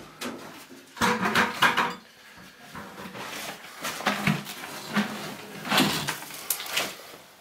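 Hands and a small plastic bucket scraping and rattling through the loose sand-and-gravel fill inside an opened cob bench, in several short bursts.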